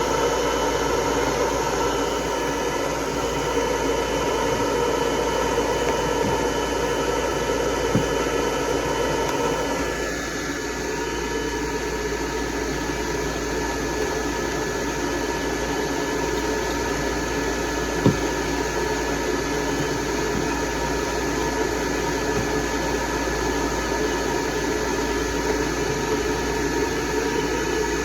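Hair dryer blowing steadily on a dog's coat, a constant rushing noise with a faint whine in it; its tone changes slightly about ten seconds in. A single small knock comes about two-thirds of the way through.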